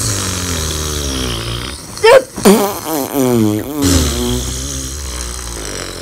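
A deep, drawn-out vocal noise, a person's voice slowed right down, wavering up and down in pitch, with sharper rises about two and two and a half seconds in.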